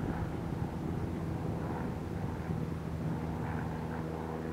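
Steady low drone of a ship's engine running, a hum of several held pitches with a rushing noise underneath.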